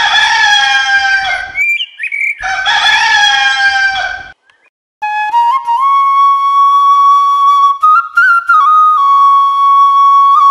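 A rooster crowing twice, each crow nearly two seconds long. From about five seconds in, a flute plays a slow melody of long held notes.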